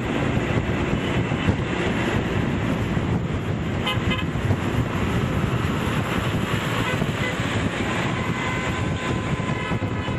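Wind buffeting the microphone and tyre and road noise from a moving car, with brief car-horn toots about four seconds in.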